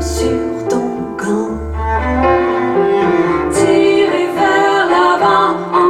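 Recorded music played back over a high-end stereo system's loudspeakers. This is an instrumental passage of a French-language song between sung lines, with sustained bowed strings over deep bass notes.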